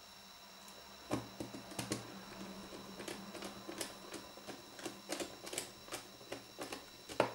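Faint, irregular small clicks and scratches of a precision screwdriver turning a small Torx screw into a GPS unit's plastic case, starting about a second in, with one sharper click near the end.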